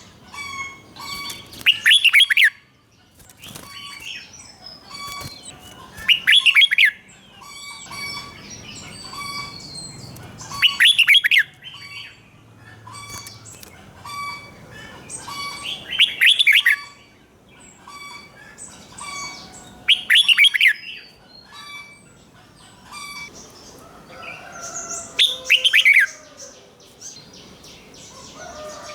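Red-whiskered bulbul singing: six loud, quick warbled phrases about four to five seconds apart, with softer short chirping notes in between.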